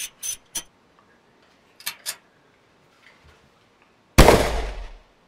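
A few sharp plastic clicks from a RAK Helium hotspot and its stick antenna being handled. About four seconds in comes one sudden loud hit that dies away over most of a second.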